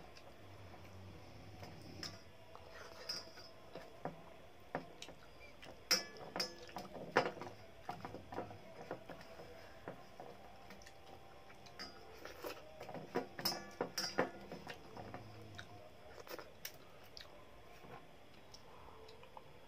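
Faint eating sounds: chewing and wet mouth clicks, with light taps of fingers scooping rice against a steel plate. They come in scattered clicks, with busier stretches about six to eight seconds in and again about twelve to fifteen seconds in.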